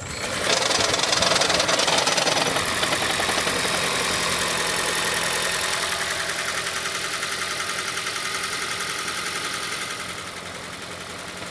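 A 2012 Toyota Prius's 1.8-litre 2ZR-FXE four-cylinder engine starting on its own and running with a rapid, even knock, the knock problem being chased with an oil pressure test. It runs loudest just after starting and drops a little in level near the end.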